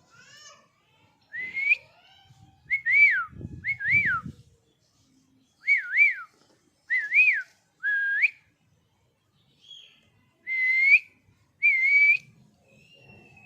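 Pet parrot whistling: about ten short, clear whistles, many gliding up and down in one or two quick humps, in small groups with pauses between. A low rumble sounds under the whistles about four seconds in.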